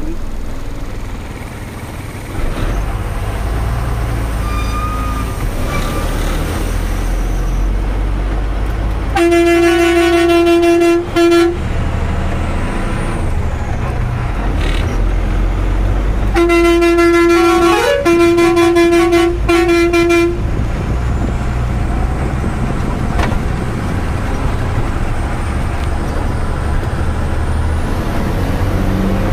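Truck horn sounding two long blasts, the first about nine seconds in for a couple of seconds and the second about sixteen seconds in for about four seconds, over the low, steady running of a Tata 3118 truck's diesel engine heard inside the cab.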